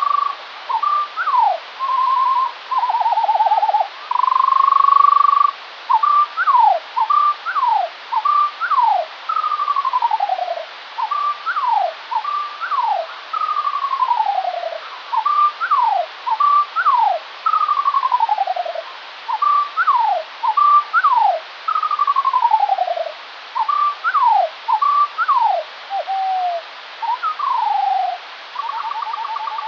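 Skylark song slowed to a quarter of its speed, which drops it two octaves, so the fast warble becomes a chain of low whistled notes. The notes come about one or two a second, mostly falling glides with some quick upward sweeps, and a few buzzy trilled notes at the start and near the end, over a steady hiss.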